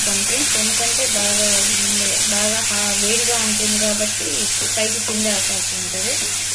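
Hot oil tempering of mustard seeds, dried red chillies and curry leaves sizzling steadily in a kadai as thick tamarind extract is poured in from a steel bowl.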